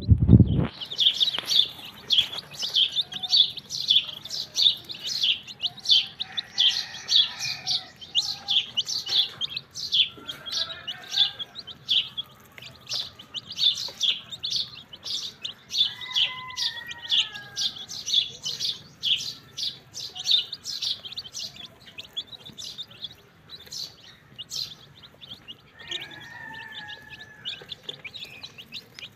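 A flock of young chicken chicks peeping without pause, with many rapid high cheeps overlapping one another. A few lower, gliding calls come now and then, and there is a brief low thump at the very start.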